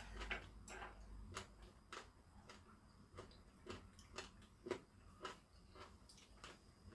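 Faint, close-up chewing of kimchi: soft crunchy clicks about twice a second as the food is chewed.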